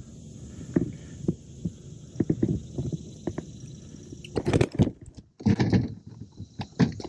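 Irregular dull knocks and thumps of handling aboard a plastic kayak, with a cluster of louder knocks about four and a half seconds in.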